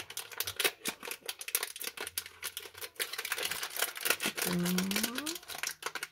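Glassine paper bag crinkling and rustling as it is handled and peeled open, a dense run of small crackles. A short rising hum from a voice comes a little past the middle.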